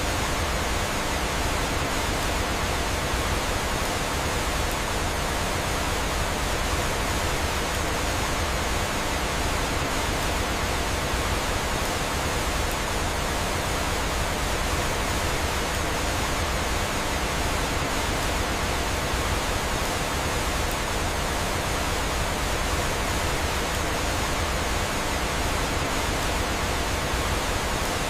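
Steady, even rush of flowing water, like a small waterfall.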